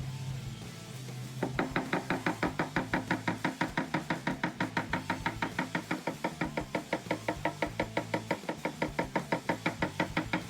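Rapid, even light taps, about five or six a second, starting about a second and a half in, over background music. This is typical of a PDR hammer and knockdown tool tapping on a car's sheet-metal body panel.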